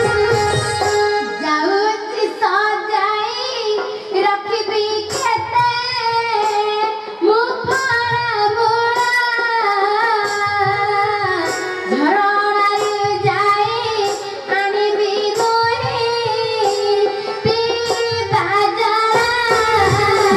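A girl singing a melodic song in Odia over instrumental accompaniment, as in a jatra folk-theatre performance. The accompaniment plays alone at first, and the voice comes in about a second and a half in.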